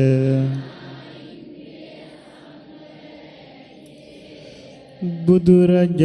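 A Buddhist monk chanting Sinhala verses in praise of the Buddha holds a long note that ends under a second in. About four seconds of faint hiss follow, then the slow chant starts again a little after five seconds.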